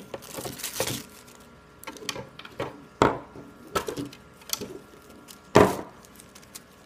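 Packaging crinkling briefly, then scattered knocks and clicks as hard plastic parts of a robot vacuum kit are handled and set down, the loudest about three and five and a half seconds in.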